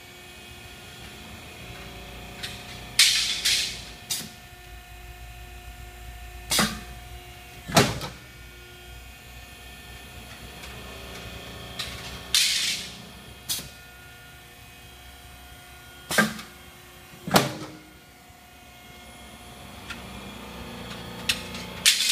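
PROFAB Feedpro slip & drive rollformer running with a steady hum as steel strip feeds through its rolls, while its cut-off press chops the formed cleats to length. The cuts are sharp metallic clacks every few seconds, mostly in pairs about a second apart, some with a short hiss.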